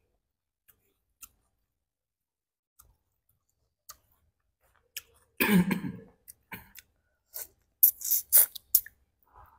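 Close-up eating sounds of boiled shrimp being peeled and eaten: scattered sharp clicks of shell and fingers, then a quick run of loud smacks and slurps near the end. A brief cough-like throaty sound comes about five and a half seconds in.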